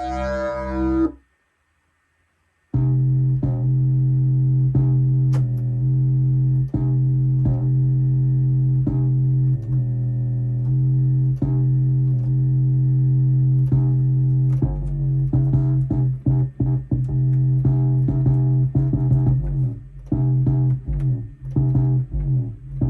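Korg Minilogue analog synthesizer playing a bass preset: a short note, a brief silence, then a low, buzzy note retriggered over and over, moving between pitches in the second half.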